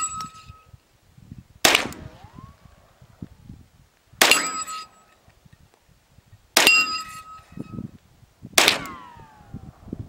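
Ruger PC Carbine semi-automatic rifle firing 9mm Luger rounds: four single shots, about two to two and a half seconds apart. A short ringing tone trails some of them.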